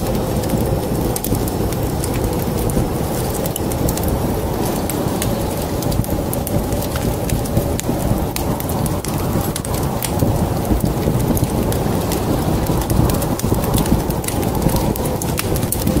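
Wood fire crackling in a fireplace: many sharp, scattered pops over a steady low rumble.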